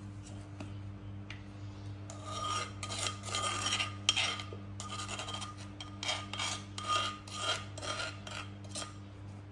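Metal spoon scraping food around a clay mortar, a run of quick scraping strokes, about two or three a second, starting about two seconds in.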